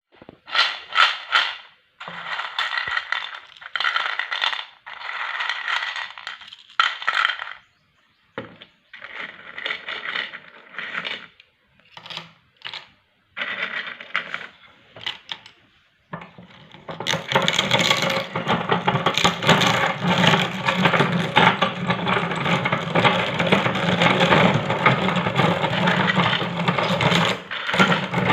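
Hard, dry snack pellets clattering in short, separate bursts as they are poured and dropped. Past the middle a meat grinder starts running steadily, its motor humming while it crunches through the pellets.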